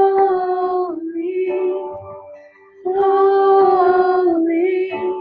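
A woman singing a slow song in long held notes: one phrase ends about a second in, a softer line follows, then a long sustained note from about three seconds in that fades just before the end.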